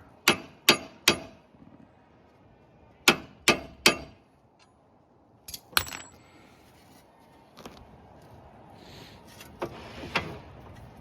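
Sharp metallic taps of hand tools on car parts: two quick runs of three strikes, then two more strikes, the last leaving a short high ring.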